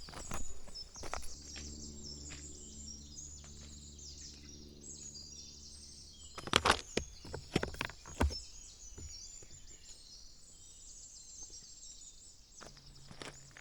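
Small birds chirping and twittering continually, with a faint steady low hum in the first half. A few sharp, loud knocks come about halfway through.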